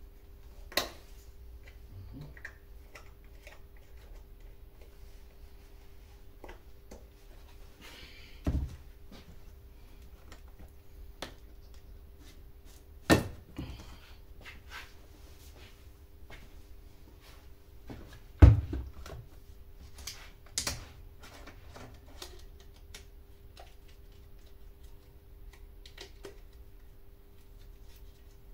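Handling noises: scattered clicks and knocks, with about five louder thumps spread through, the loudest about two-thirds of the way in. A faint steady hum runs underneath.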